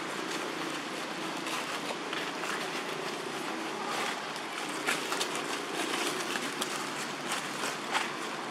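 Steady outdoor background noise with a faint low hum, and a few short soft clicks or rustles, a cluster about halfway through and one near the end.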